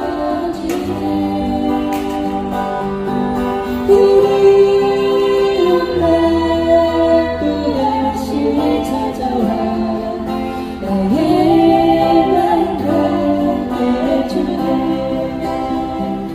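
Women singing a slow song into microphones, accompanied by acoustic guitars.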